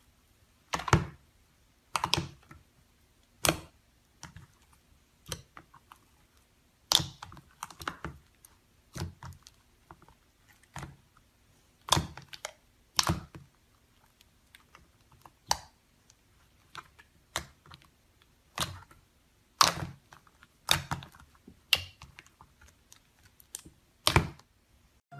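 Thick fluffy slime being kneaded and poked by hand in a plastic tub, making sharp wet pops and clicks, irregularly about one a second.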